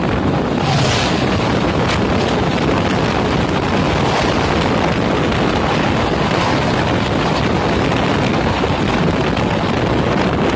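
Loud, steady rush of wind and wheel-on-rail noise from a moving train as an oncoming train passes close on the next track: a diesel locomotive, then its passenger coaches rushing by. A brief brighter swell comes about a second in as the locomotive goes past.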